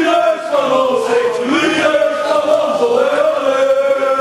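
A small group of football supporters chanting together, men's voices holding long drawn-out notes of a terrace song.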